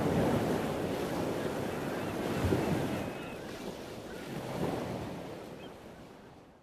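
Ocean waves washing in with a steady hiss, swelling twice and fading out near the end.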